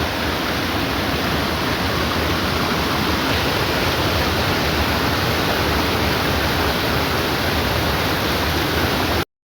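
Upper tier of a creek waterfall rushing close by: a loud, steady roar of falling water that cuts off abruptly near the end.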